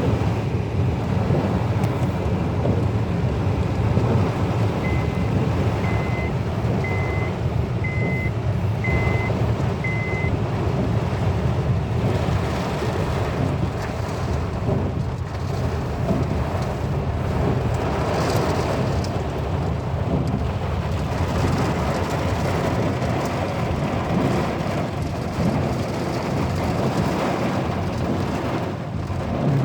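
Storm wind and heavy rain, with a steady low rumble of wind on the microphone. Early on, six short electronic beeps sound about a second apart.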